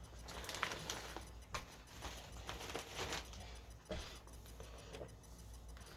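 Potato chips being chewed: faint, irregular crunches and clicks, a handful of them spread through the few seconds.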